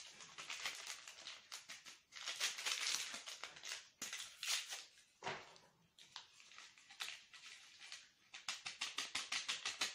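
Wire whisk beating flour into chocolate cake batter in a plastic bowl: quick scraping strokes in bursts, turning into a fast even run of several strokes a second near the end.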